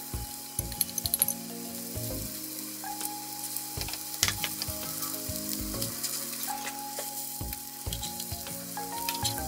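Oil sizzling steadily in a frying pan under shallow-fried shredded-carrot fritters, with scattered sharp clicks and pops.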